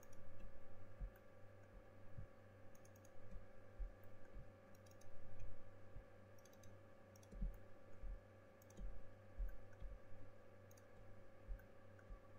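Computer mouse clicking, often in quick pairs or threes, with soft low knocks in between, over a steady background hum.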